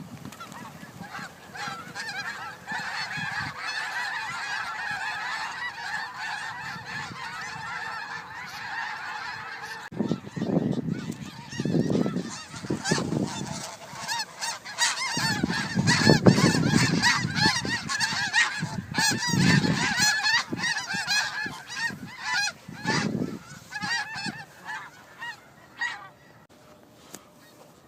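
A large flock of snow geese honking in a dense, overlapping chorus as they take flight, with low rushing gusts through the middle of the stretch. The calling thins out near the end.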